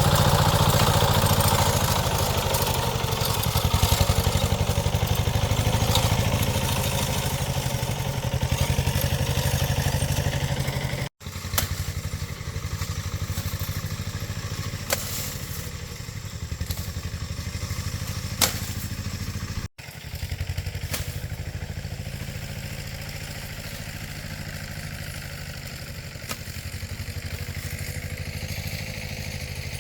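Small engine running steadily with a low, even firing pulse and some clatter and a few sharp knocks. The sound drops out abruptly twice, about a third and two-thirds of the way through.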